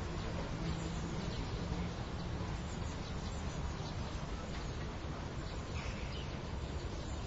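City yard ambience before rain: a steady low city rumble with a faint hum underneath, and scattered short bird chirps.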